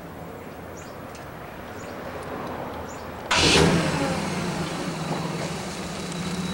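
A motor vehicle engine comes in abruptly with a loud burst about three seconds in, then runs on as a steady hum. Before that, only a faint low hum.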